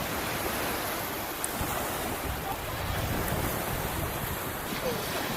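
Ocean surf washing steadily onto a beach, an even rushing noise, with wind rumbling on the microphone.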